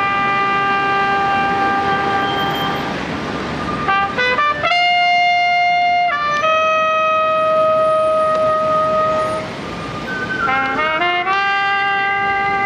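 Solo trumpet playing a slow melody of long held notes, with quick runs of shorter notes about four seconds in and again near the end.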